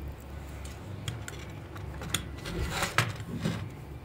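Light clicks and taps of hard plastic and metal tools being handled on a workbench, then a louder clatter about three seconds in as the plastic toy car is turned round and set down on the cutting mat.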